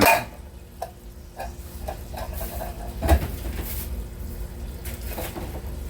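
Scattered light clinks and knocks of cooking utensils, cans and a pot being handled, the loudest knock about three seconds in, over a low steady hum.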